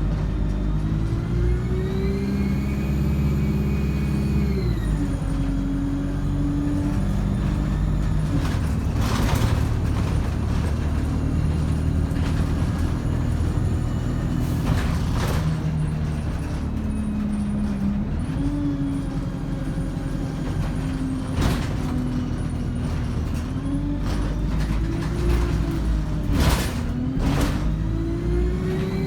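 ADL Enviro 200 bus engine running under way, its pitch rising and falling repeatedly as the three-speed Voith automatic gearbox changes gear, with a high turbo whine rising and falling over it. Several short sharp knocks or hisses come through at intervals.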